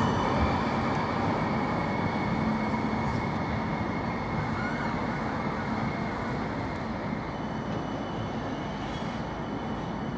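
A CAF Urbos 3 light-rail tram running away along street track, its rolling and running noise fading gradually, with a steady high whine.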